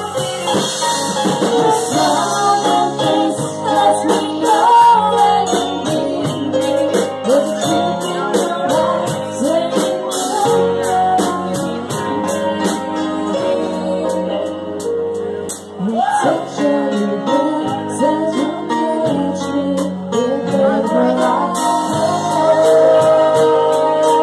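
A woman singing a song over backing music with held instrumental chords and a steady drum beat, amplified through a bar's sound system.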